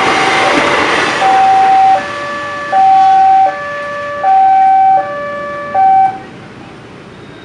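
Railway level-crossing warning siren alternating between a high and a low tone, each held for under a second, the high tone louder, cutting off about six seconds in. A broad rumble lies under the first second or so and fades away.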